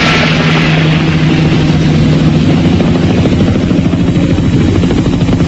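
Helicopter running, its rotor blades chopping steadily under a low hum.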